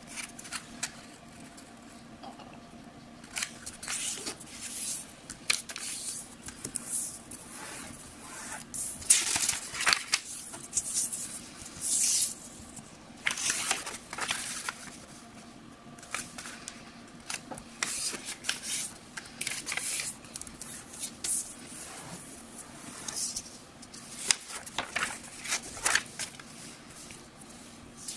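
Sheet of paper being folded and creased by hand: irregular rustling and scraping swipes as fingers run along the folds and smooth the sheet on the table, loudest about nine to fourteen seconds in.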